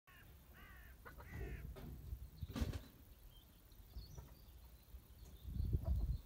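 Domestic chickens calling: two short warbling calls in the first second and a half, with a sharp knock about two and a half seconds in and faint high chirps later. Uneven low rumbling runs underneath, loudest near the end.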